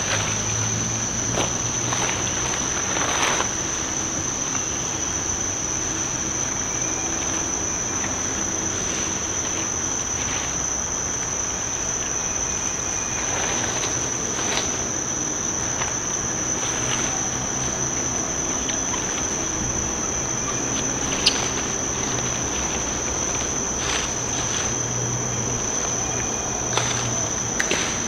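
Insects in the forest making a steady, unbroken high-pitched drone, with scattered brief clicks and rustles over it.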